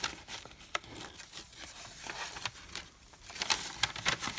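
Light rustling and scattered small ticks of a kraft-paper envelope being handled while the twine tied round it is unwound. The rustling gets busier near the end.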